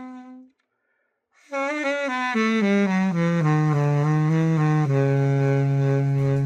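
Woodking M-series alto saxophone played after a full overhaul: a held note dies away, a brief silence, then a falling run of notes that settles on a long low note near the bottom of the horn's range.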